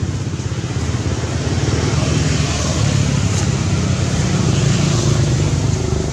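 Low rumble of a motor vehicle engine, growing louder about two seconds in and easing slightly near the end.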